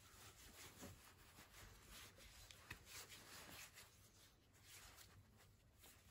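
Faint, irregular swishing of hands rubbing together, working hand-sanitiser gel into the palms and fingers.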